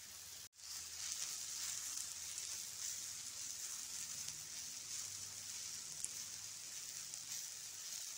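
Spiced filling sizzling steadily in hot oil in a pan while a metal spoon stirs it. The hiss breaks off for an instant about half a second in.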